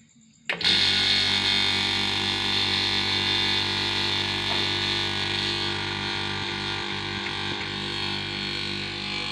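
A motor-driven machine switches on abruptly about half a second in and runs steadily with an even hum and a strong hiss.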